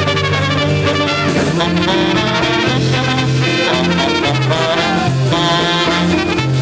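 Polka band playing an instrumental led by trumpets, backed by accordion, guitars, upright bass and drums, with a steady bouncing bass line.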